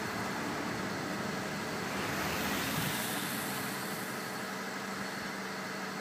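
Car traffic on a snow-covered street: a steady rush of passing vehicles that swells about halfway through.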